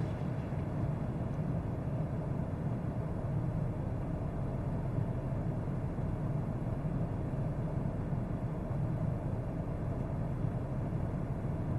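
Steady low mechanical hum with no distinct events.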